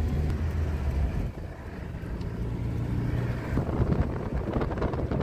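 Car engine and tyre noise heard from inside the moving car. From about three and a half seconds in, wind buffets the microphone.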